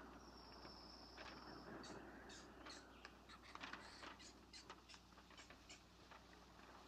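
Near silence with faint outdoor wildlife: scattered short bird chirps, and a high insect trill lasting about a second and a half near the start.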